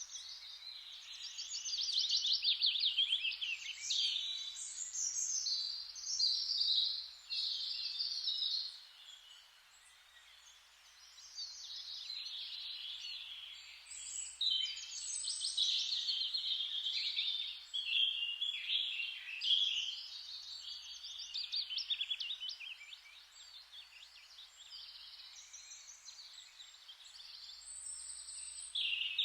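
Forest ambience: a dense chorus of birds chirping and trilling, swelling and fading in waves over a steady hiss.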